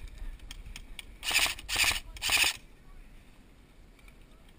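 Three short bursts of airsoft gunfire in quick succession, each under half a second long, coming about a second in.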